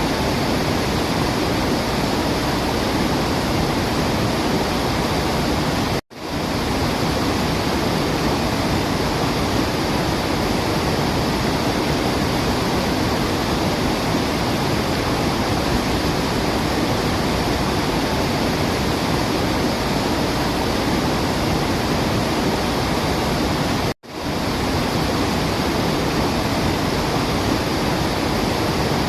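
Waterfall: a steady, even rush of falling water. It cuts out briefly twice, once about six seconds in and again about five seconds before the end, each time swelling straight back.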